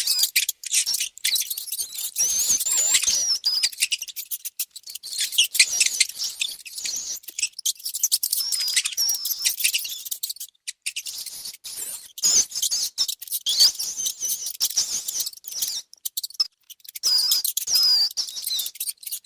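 Mice squeaking: rapid high-pitched squeaks that glide up and down, in runs broken by short pauses, over many short clicks.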